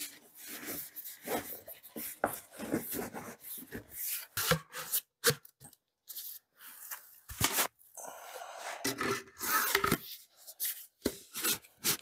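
A flexible solar panel being rolled up by hand and pushed into its plastic carrying tube: rubbing and scraping of the panel against the tube, with many small knocks and clicks and a longer scrape about nine seconds in.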